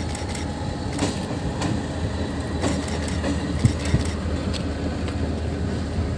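Train rolling past with a steady rumble and sharp wheel clicks over rail joints every second or so. The train is a retired first-generation TRA EMU400 electric multiple unit being moved dead to the scrapyard.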